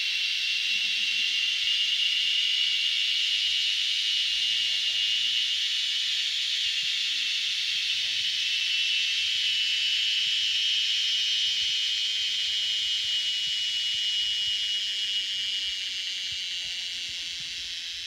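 A cicada chorus in tropical forest: a steady, high droning buzz that fades away over the last few seconds.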